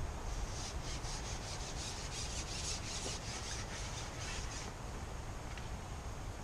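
Rhythmic rasping rubs, about four or five strokes a second, from handling a long fishing pole. The rubbing stops about two-thirds of the way in, and a faint click follows near the end.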